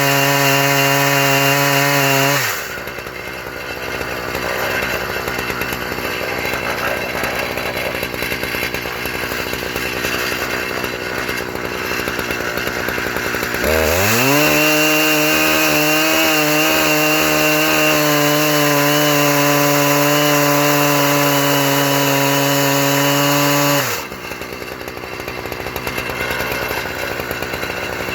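Husqvarna 3120's large two-stroke chainsaw engine running at high revs in an Alaskan chainsaw mill. The sound changes between a rough, noisier tone while cutting and a steady high whine. It drops into the rougher tone a couple of seconds in, rises to the steady whine about halfway through, and falls back about four seconds before the end.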